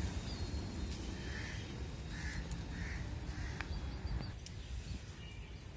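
A crow cawing three or four times in the first half, over a low steady rumble that fades about four seconds in.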